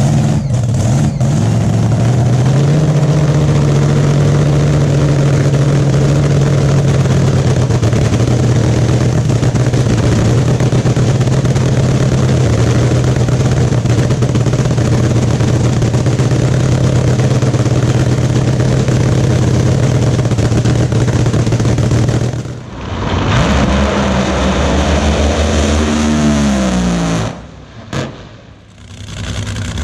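Nitromethane-fuelled dragster engine running at a loud, steady cackling idle for about twenty seconds. It drops out briefly, comes back with its pitch falling away, and cuts off near the end, with a single sharp click before engine sound starts again.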